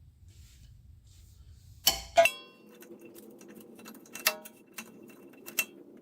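A steel wrench clinking twice against the rear axle's vent valve fitting as the old valve is worked loose, each clink ringing briefly, followed by a few lighter metal ticks and clicks.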